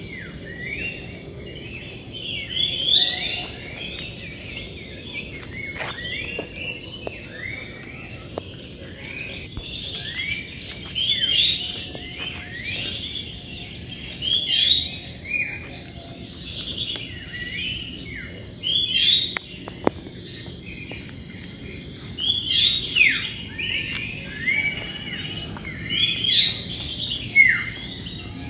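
Wild birds chirping and twittering in many short, quick notes, several calling at once, over a steady high-pitched insect trill that grows louder about ten seconds in.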